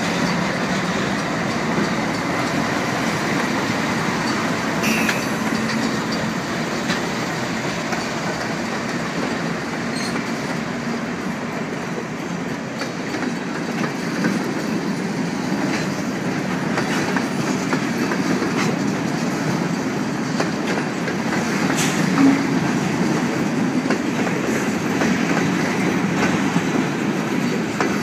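CN freight train rolling past: a steady rumble of steel wheels on rail, with occasional sharp clicks and clanks as the wheels cross rail joints.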